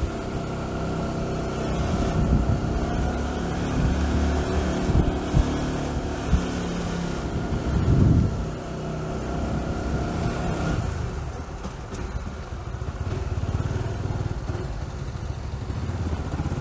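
Honda GTR150 motorcycle's single-cylinder engine running at low speed, with a short low thump about eight seconds in; the engine note fades a little from about eleven seconds in.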